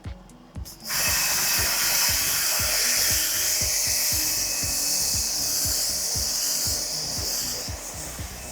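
Portable high-pressure car washer spraying through its foam jug, starting about a second in: a steady hiss with a rapid low pulsing beneath it, easing slightly near the end.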